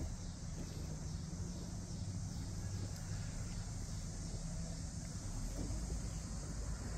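Steady outdoor background noise: a low rumble with a faint high hiss, and no distinct event.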